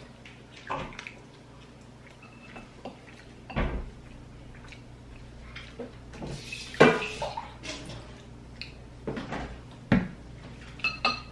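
Scattered clinks and knocks of dishes and cutlery on a table, with a louder burst about seven seconds in and a few sharp clinks near the end.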